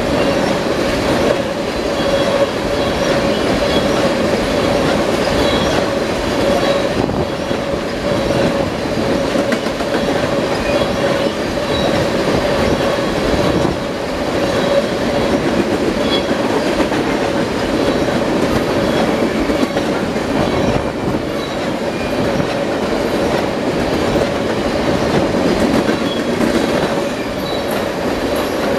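Freight train of crude-oil tank cars rolling past on the rails: steady wheel rumble and clickety-clack over the rail joints, with a steady whine and faint high squeals from the wheels.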